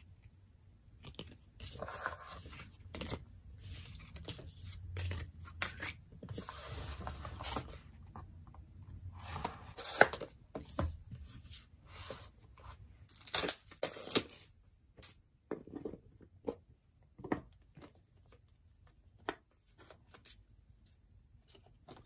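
Hands handling photocards, album covers and card packaging: irregular rustling, sliding and scraping of card and paper, with a few sharper scrapes in the middle.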